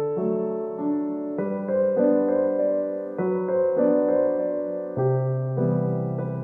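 Background piano music: a slow keyboard melody of sustained notes and chords, changing about every second.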